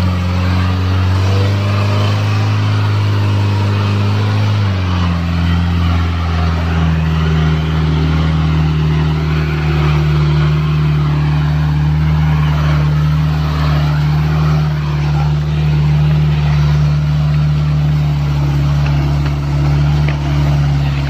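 Off-road jeep's engine pulling steadily as it climbs a muddy slope: a loud, low, even drone whose pitch shifts once, about four and a half seconds in, then holds.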